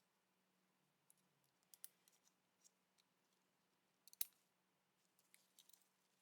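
Faint, scattered light clicks and taps of small hard objects being handled, with a sharper click about four seconds in.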